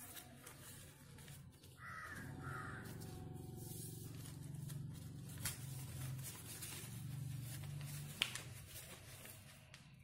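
A sheet of paper being folded and creased by hand, with soft rustles and crinkles. Two short harsh calls sound about two seconds in, and a low hum runs from then until about eight seconds.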